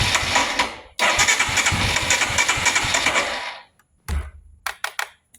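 2022 Royal Enfield Himalayan's electric starter cranking the single-cylinder engine, which turns over but does not fire: the no-start the owner puts down to a failing fuel pump that does not prime. The cranking breaks off briefly about a second in, runs again and stops past the middle, followed by a few short knocks.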